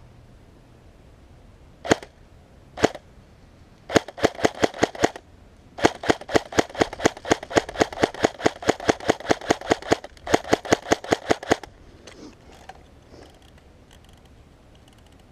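Airsoft gun firing: two single shots, then rapid strings of shots at several a second, with short breaks between strings.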